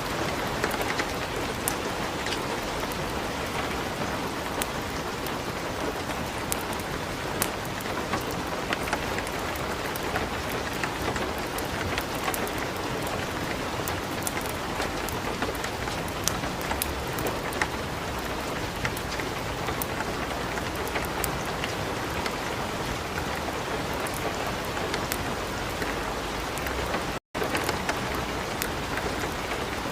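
Light rain falling steadily, mixed with a wood fire crackling in a fireplace with many small sharp pops. Near the end the sound cuts out completely for an instant.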